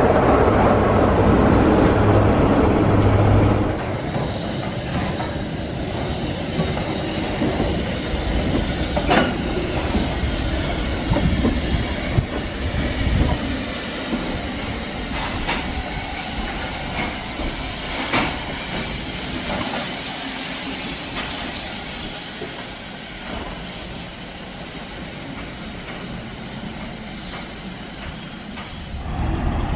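For the first few seconds BR Class 25 diesel locomotive D7628 runs past close by, its Sulzer engine giving a deep, steady note. Then a steam tank locomotive rolls slowly over the level crossing, its wheels clicking over the rail joints with some hiss of steam, fading toward the end.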